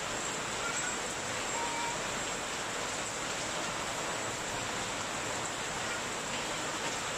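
Steady rain falling, an even hiss of water on the ground and surrounding surfaces.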